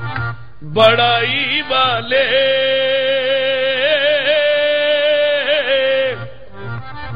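Qawwali lead singer's male voice holding one long note with wavering ornaments, from about a second in until about six seconds, over harmonium. Before and after the held note, hand drums pulse under the harmonium.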